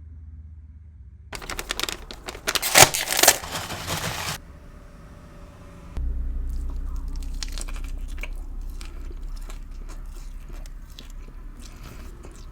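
Close-up eating sounds: loud crunchy bites into air-fried chicken in a lettuce wrap for a few seconds, then quieter chewing with scattered crunches. A low steady hum starts suddenly about halfway through.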